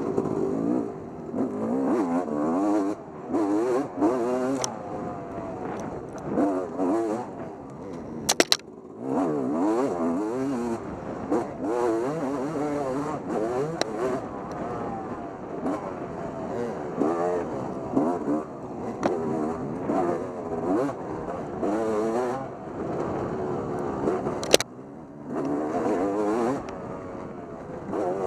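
Motorcycle engine revving up and down over and over as the throttle is opened and closed. There is a sharp knock about eight seconds in and another a few seconds before the end.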